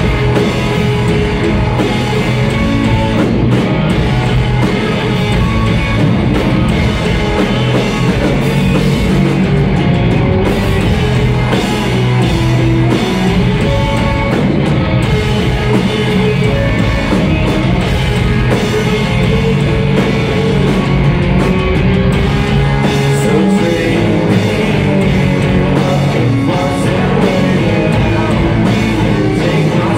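Live rock band playing steadily and loud: electric guitars, bass guitar and drum kit together.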